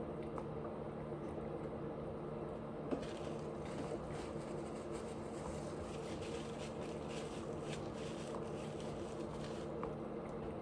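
A person chewing food close to the microphone, with soft wet mouth clicks and smacks, densest from about three seconds in until near the end. A steady low hum runs underneath.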